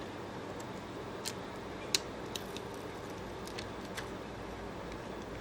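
A few faint, sharp clicks and crackles over a steady hiss as a pry tool lifts a phone's cracked touchscreen glass away from its softened adhesive. The loudest click comes about two seconds in.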